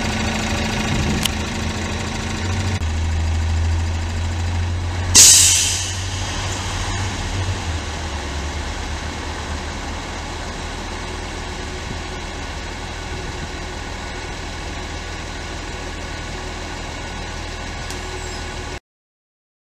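CNG-powered city transit bus idling at a stop, with a short, loud hiss of released air from its air brakes about five seconds in. The sound cuts off abruptly near the end.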